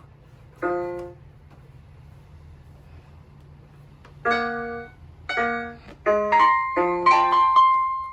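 Sanmersen toy electronic keyboard played in a piano voice: one note, a pause of about three seconds, two more single notes, then a quicker run of notes and chords near the end.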